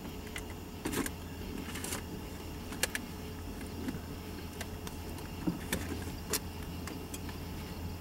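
Low steady rumble of a distant diesel freight locomotive approaching, with a few sharp clicks scattered through it.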